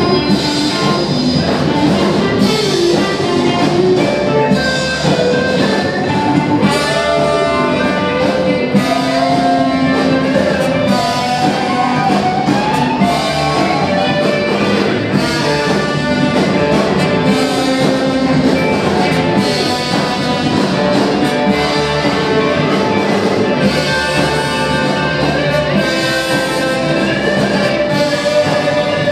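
Live rock band playing an instrumental stretch: electric guitar lead over bass and drums, with horns in the mix.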